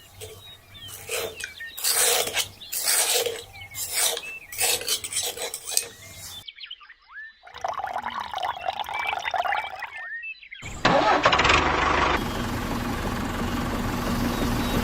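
Repeated noisy strokes about every half second, with birds chirping over them. After a cut, a small engine runs steadily, the loudest part, for the last four seconds.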